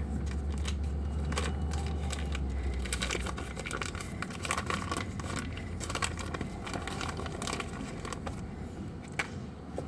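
Paper wrapper being peeled and crinkled off a stick of butter: irregular papery crackles and rustles. A low hum underneath fades out about three seconds in.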